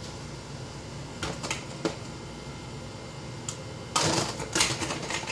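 Plastic baby-bottle and breast-pump parts being handled in a plastic wash tub: a few light clicks, then about four seconds in a louder, busy clatter as a hand moves the parts around.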